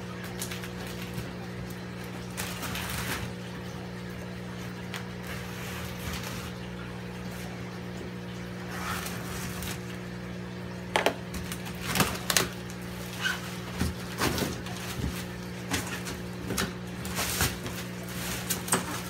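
A razor blade slicing packing tape on a cardboard shipping box, then the cardboard flaps and a styrofoam lid being pulled open, with a run of sharp crackles and knocks in the second half. A steady low hum sits underneath.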